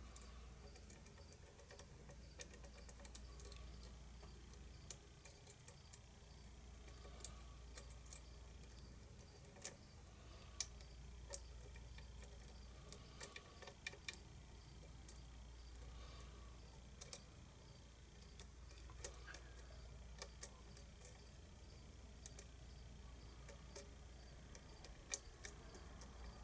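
Small irregular metallic clicks and ticks of a lock pick working the pins inside the Diomedes pin-tumbler challenge lock during single-pin picking. They are scattered over a faint steady hum.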